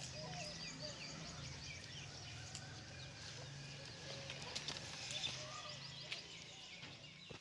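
Many small birds chirping and twittering over one another in a continuous chorus, over a low steady hum, with a few brief clicks about five seconds in.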